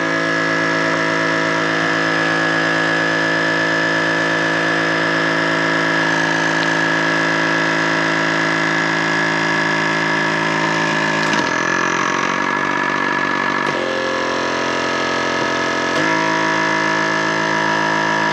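A vacuum sealer's pump motor running with a steady hum as it draws the air out of a bag. Its tone changes for a few seconds from about eleven seconds in, then settles back.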